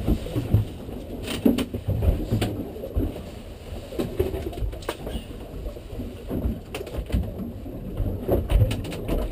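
Irregular knocks and clicks of someone moving about and handling things on a fiberglass boat deck, over low rumbling of wind and water, with the engine shut off.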